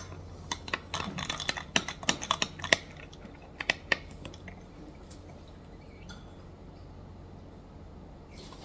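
A quick run of light clicks and clinks from kitchen utensils and dishes being handled, over the first four seconds, then only a low steady hum.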